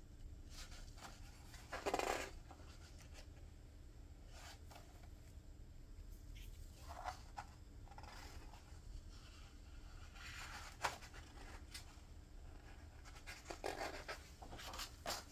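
Pages of a hardbound book being turned by a gloved hand: soft paper rustles and rubs, the loudest a swish about two seconds in, with another page being lifted near the end.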